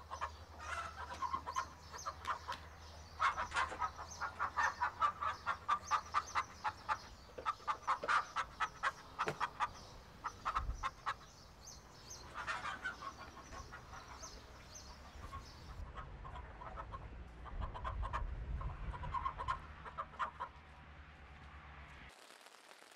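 Chickens clucking in quick runs of short calls, busiest through the first half, with further bouts later.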